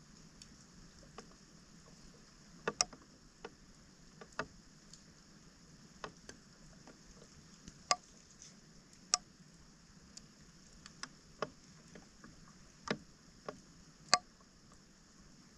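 Irregular splashes and knocks in shallow floodwater, about a dozen over the stretch, as debris is worked out of a clogged roadside drain. A steady faint hiss lies beneath them.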